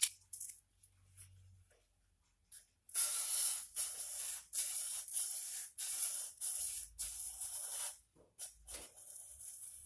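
Sandpaper wrapped around a wooden block stroked back and forth along a steel axe bevel, honing the freshly filed edge. The short scratchy strokes come about two a second, starting about three seconds in and fading near the end.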